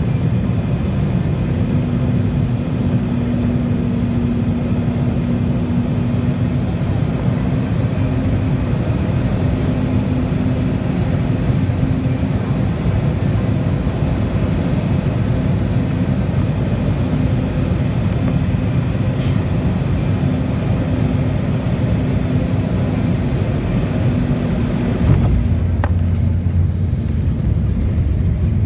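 Jet airliner cabin noise on final approach: the steady sound of the turbofan engines and rushing air, with a steady hum. About 25 seconds in, a few knocks and a change in the rumble mark the wheels touching down on the runway.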